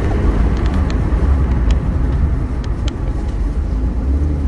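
Low road and tyre rumble inside a Scion tC's cabin during a hard braking stop, with a few light clicks scattered through it. The driver puts these clicks down to new brake pad hardware rattling loose on the caliper, its clearances too large to sit flush.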